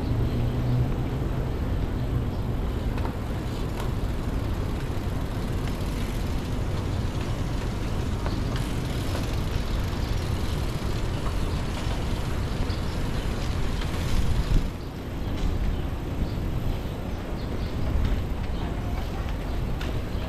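Wind rumbling over the microphone of a camera on a moving bicycle, with tyre and road noise underneath; it swells briefly about fourteen seconds in, then drops.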